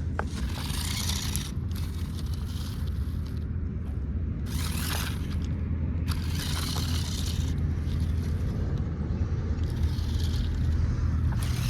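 Off-road RC car driving through mud and dirt: a steady low motor hum, with several bursts of tyres scraping and churning through the ground.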